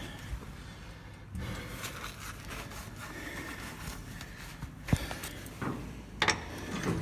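Handling noise from a phone carried while walking: fabric rubbing over the microphone, with a sharp click about five seconds in and a few knocks near the end.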